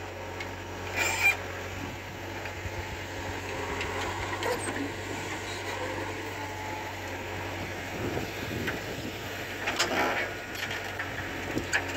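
JCB backhoe loader's engine running steadily as it digs sand and loads it into a tractor trolley, with a short louder sound about a second in and another near ten seconds.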